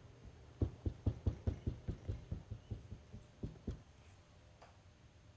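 Wooden rammer tamping Petrobond oil-bonded sand down into a steel casting flask: a quick run of dull thuds, about five a second, that stops a little before four seconds in. The sand is being rammed tight to make a sand mould.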